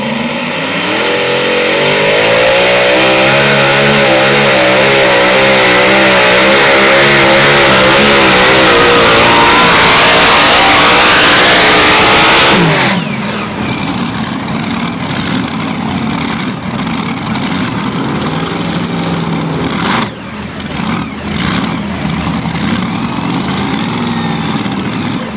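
Modified pulling tractor's engines at full throttle hauling the weight sled, the pitch wavering up and down for about twelve seconds, then cutting off suddenly as the pull ends. A lower, rougher engine sound runs on afterwards.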